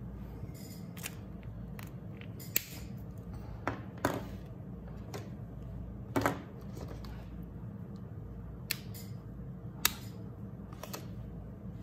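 Plastic twin-tip alcohol markers (Touch Migo) being handled on a desk: about seven scattered sharp clicks and knocks as markers and caps are picked up, set down and tapped against each other, over a steady low hum.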